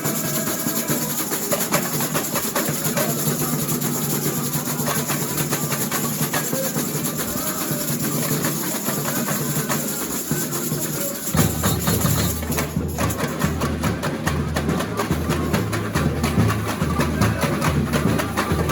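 Samba school bateria (drum section) playing a samba rhythm in rehearsal, dense and steady. The deep bass drums come in much heavier about eleven seconds in.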